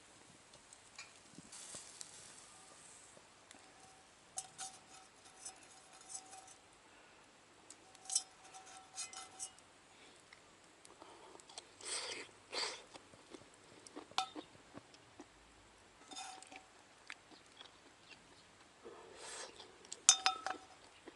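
Scattered light clinks and taps of utensils against metal and dishes, some with a short ring; the loudest comes near the end.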